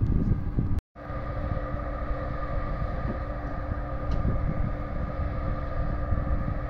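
A river cruise ship's engines running with a steady drone and a held hum, under wind rumbling on the microphone. The sound drops out for a moment just under a second in.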